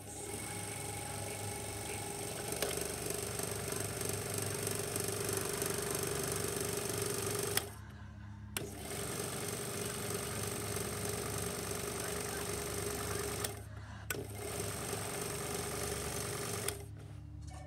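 Kodak Ektagraphic 120-P super 8 projector's motor and film-advance mechanism running with a steady mechanical whir. It is switched off and on with a click twice, stopping for about a second a little before halfway and again briefly about three-quarters through, and it stops near the end.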